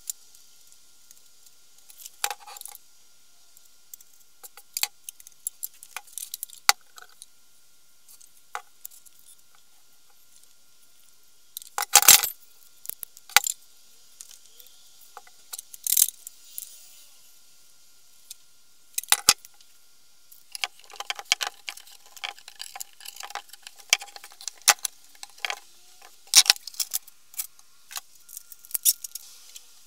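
Irregular metallic clinks, taps and light rattles from an old rusty fireman's axe being handled and turned over on a plywood bench. Most are quiet, a few knocks are louder, and the small clinks come thick and fast in the last third.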